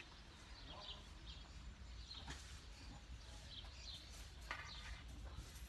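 Quiet outdoor background with faint, scattered bird chirps and a couple of soft knocks.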